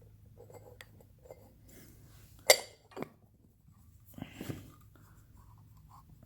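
Scattered small metal clicks and clinks of hand tools and screws on the winch's slip ring housing as it is unscrewed, the sharpest about two and a half seconds in, over a faint steady low hum.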